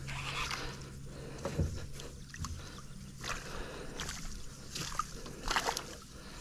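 Water sloshing and splashing against a small boat in a series of short bursts.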